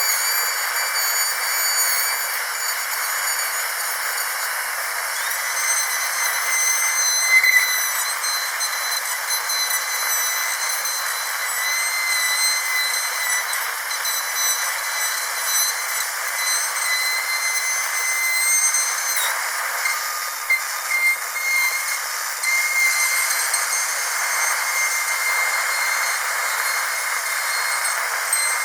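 Dentist's drill running continuously: a high-pitched whine over a steady hiss, the pitch wavering slightly, with a few brief dips in level in the second half.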